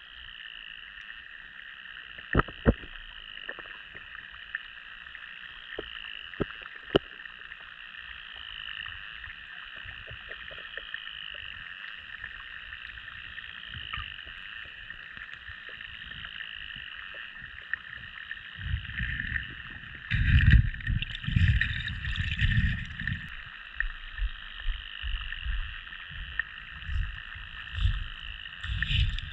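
A chirp repeating about every two seconds over a steady background, with a few sharp clicks in the first seven seconds. From about nineteen seconds in, loud irregular water sloshing and knocking takes over.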